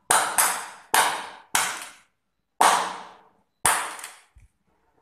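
Hand claps: six sharp claps at uneven intervals over about four seconds, each ringing out for about half a second, then a faint tap just after four seconds in.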